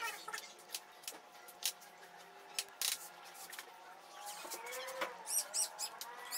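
Scattered light clicks and taps of hands working the metal T-handle clamps of a screen-printing mesh stretcher and the mesh on its aluminum frame. Near the end come a few short, high chirps.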